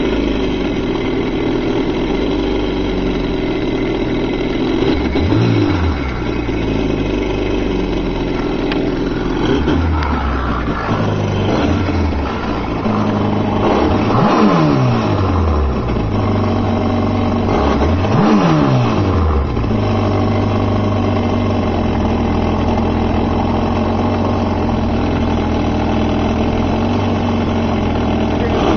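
Kawasaki STX-12F jet ski's four-stroke engine running just after start-up, out of the water, idling steadily and revved briefly about five times, each rev rising and falling back to idle.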